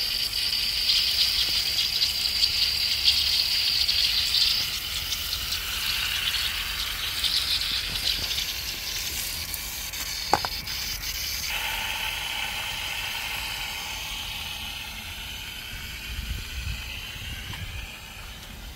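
Garden irrigation water spraying with a steady hiss that shifts in tone a couple of times, with one sharp click about ten seconds in.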